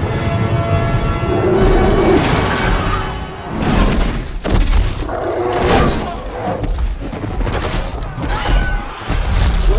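Film battle soundtrack of a cavalry charge among war elephants: a sustained orchestral score, then from about three and a half seconds in a series of heavy booms and crashing impacts over the music.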